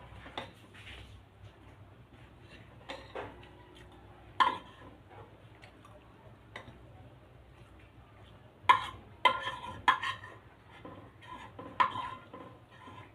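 Metal spoon clinking and scraping against a bowl while eating rice, in scattered taps, with a sharp clink about four seconds in and a quick run of clinks about nine seconds in.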